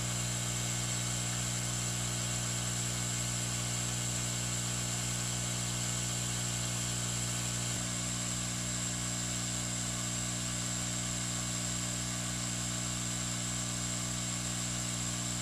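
Steady whir of a hot-air rework station's blower, with a constant low hum and a high whine, as the solder under the Xbox 360's chips is held at reflow temperature.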